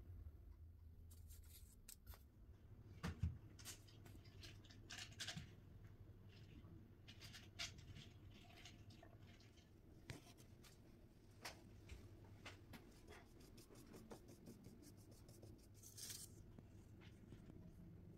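Faint scattered clicks, taps and light scrapes of hands handling cut cookie dough and baked tooth-shaped cookies, over a low steady hum. A duller knock comes about three seconds in, and a short rustle near the end.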